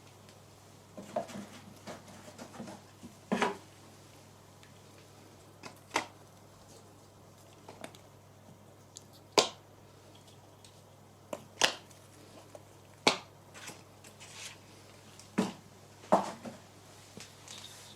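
Scattered sharp clicks and light taps, one every second or two, over a faint steady low hum.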